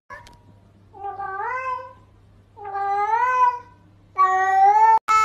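A domestic cat meowing three times, drawn-out calls that rise and then fall in pitch, about a second apart, the last one the longest.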